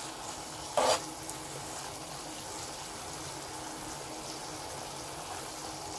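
Grated beetroot bubbling and sizzling steadily in a pan of melted sugar syrup, with one brief louder noise about a second in.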